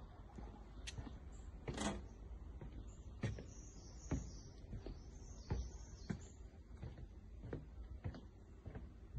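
Footsteps on a wooden boardwalk, a step roughly every half second, with a louder knock about two seconds in. A bird chirps high and briefly near the middle.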